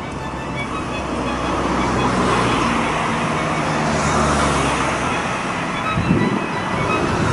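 An engine running as it passes, with a low steady hum that swells and then drops away about five and a half seconds in, followed by rough noise.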